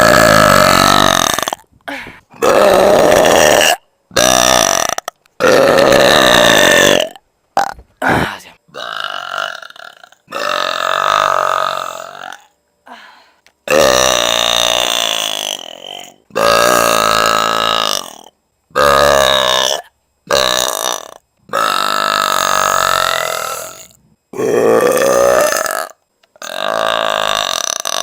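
A woman belching over and over, loud and manlike: about fourteen drawn-out belches of one to two seconds each, with short silent gaps between them.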